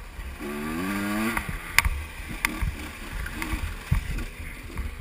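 Two-stroke dirt bike engine revving up, its pitch rising for about a second, then running on unevenly while the bike is ridden, with low wind rumble on the helmet-mounted microphone. Two sharp clicks come about halfway through.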